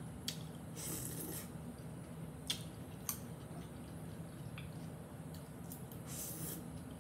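Close-up eating sounds: chewing crispy stir-fry vegetables and noodles, with a few sharp clicks of metal chopsticks and two short crunchy, slurpy bursts, about a second in and near the end, over a low steady hum.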